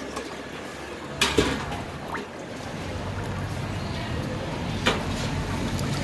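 Metal ladles clinking against a stainless steel mixing bowl as sauce and dressing are spooned onto seafood: a sharp clink about a second in and another near the end. Under them a steady low rumble builds from about two seconds in.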